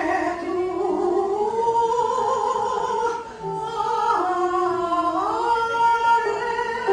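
A woman singing solo, holding long notes that step up and down in pitch.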